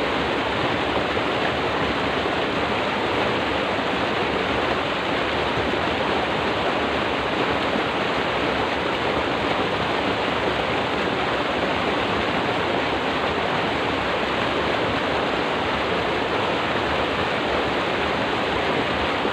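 Water rushing steadily in a small ditch, churning past a concrete edge: an even, unbroken rushing sound.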